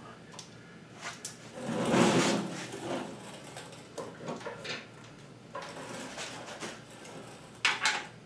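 Hand-work noises of parts and tools being handled: a sliding scrape about two seconds in, scattered clicks, and a short rattle near the end.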